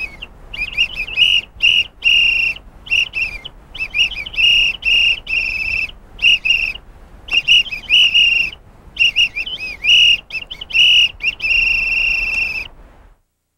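Clear, high whistled notes in short phrases with brief gaps, some wavering or trilled and one held longer near the end, over a faint hiss; the sound cuts off suddenly just before the end.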